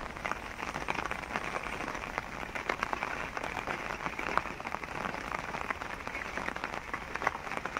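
Heavy rain falling steadily: an even hiss thick with many small, sharp drop ticks.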